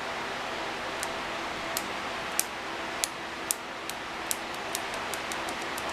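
A worn switch from an old variable DC power supply being worked back and forth by hand, giving sharp light clicks. The clicks come irregularly at first and faster near the end, over a steady hiss.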